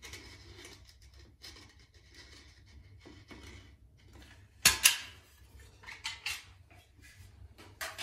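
Metal caulking gun laying silicone into a crack in a tiled shower pan: faint rustling, then two sharp clacks close together a little past halfway, followed by a few lighter clicks.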